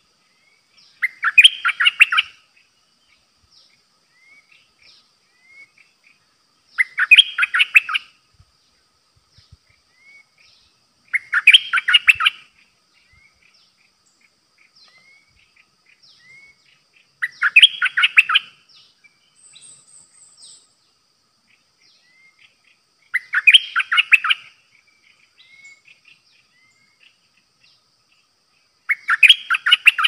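A caged decoy bulbul singing, six short rich phrases of about a second each, one roughly every five to six seconds, with faint high chirps between them.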